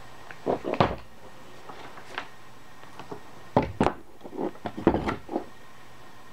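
Hard parts and tools being shifted and knocked about on a wooden workbench while someone searches for a dropped nut: a short burst of clicks and knocks about half a second in, then a longer cluster of knocks a few seconds later.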